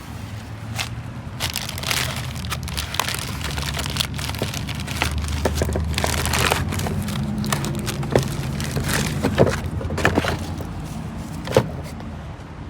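2006 Acura RL's 3.5-litre V6 running with a steady hum and irregular sharp knocks and clicks from the front of the engine, which the owner puts down to a failing harmonic balancer (crankshaft pulley).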